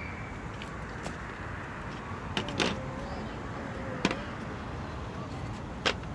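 A few sharp metallic clicks and clinks of a hand wrench working on the air compressor of a small locomotive engine as it is tightened, over a steady low background rumble.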